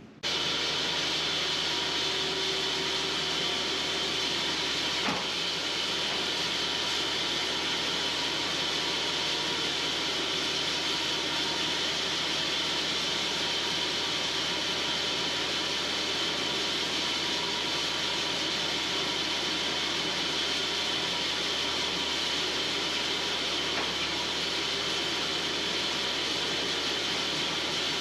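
Cook's portable band sawmill running steadily, engine and band blade sawing into the log.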